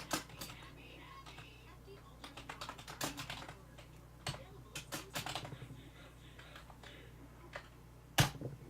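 Typing on a computer keyboard: irregular runs of key clicks, with one louder knock near the end, over a faint low hum.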